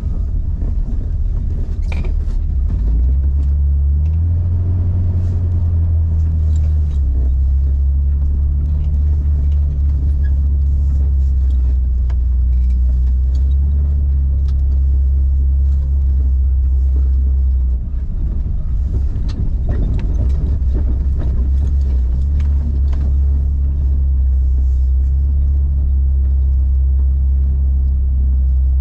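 Jeep engine running at low crawling speed, heard from inside the cabin: a steady low drone that rises in pitch for a few seconds near the start, then settles. Scattered knocks and rattles from the vehicle bouncing over the rough trail.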